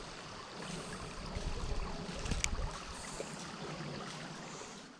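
Shallow creek water running and rippling over a gravel bed, with a low rumble from about one to three seconds in and a single sharp click a little after two seconds.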